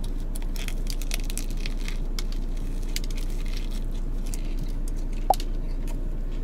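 Close-up biting and chewing of a crusty sub roll: crisp crackling crunches and wet squishing, over a steady low hum. A short squeak about five seconds in.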